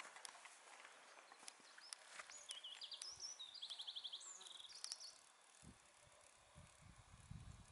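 Faint outdoor ambience with a few light clicks. About two seconds in comes a run of short high chirps and a fast trill from a small calling animal, lasting about three seconds. A low rumble follows near the end.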